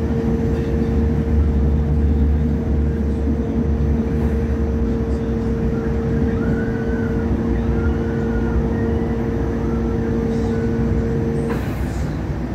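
Hong Kong Light Rail Phase III train running, with a low rumble and a steady two-note hum; the hum stops suddenly near the end.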